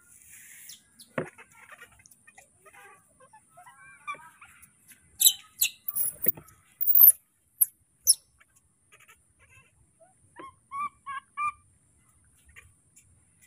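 Scattered sharp knocks and taps from small animals scrambling over a wooden table and plastic plate, loudest in a cluster about five to eight seconds in. Short chirping calls come through too, with a run of four quick chirps near the end.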